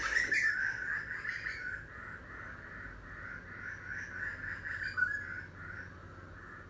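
Harsh bird calls repeated a few times a second, louder just after the start and again about five seconds in.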